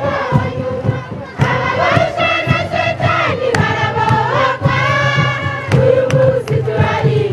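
A marching crowd singing together, one strong voice carrying a long, wavering melody over the others, with short sharp knocks throughout.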